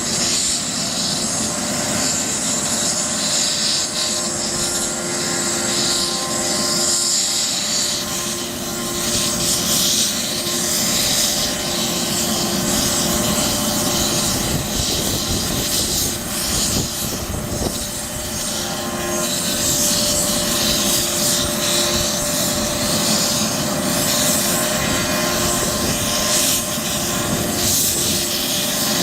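Police helicopter's turbine engines running steadily on the ground after landing, a steady whine over loud engine noise.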